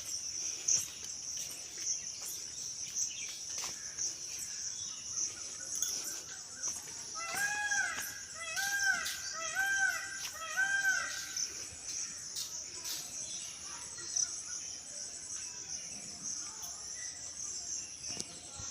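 Crickets or other insects drone steadily at a high pitch. About seven seconds in, a bird calls a run of about five arched notes, roughly one a second.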